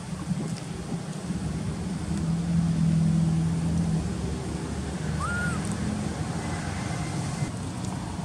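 A motor vehicle engine running steadily close by as a low hum, swelling about two seconds in and easing off after about four seconds. A short rising-and-falling whistle sounds just past the five-second mark.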